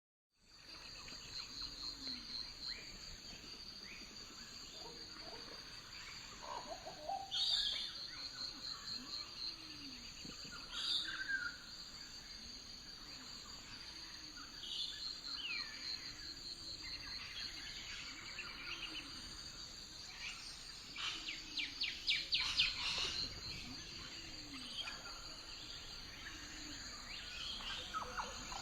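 Lakeside ambience: several birds chirping and calling, with louder bursts of song now and then, over a steady high insect trill. A low call repeats about once a second underneath.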